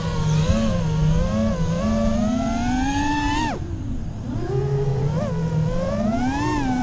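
Freestyle quadcopter's T-Motor LF40 2305 2450kv brushless motors and HQProp Ethix S3 propellers whining, the pitch rising and falling with the throttle. The pitch drops sharply about three and a half seconds in as the throttle is cut, then climbs again.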